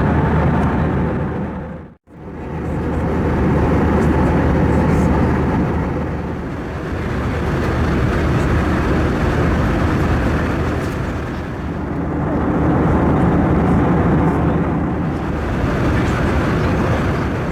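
Steady roar of an Airbus A321's jet engines and rushing air, with a low hum under it, swelling and easing slightly every few seconds. It drops out abruptly for a moment about two seconds in, then returns.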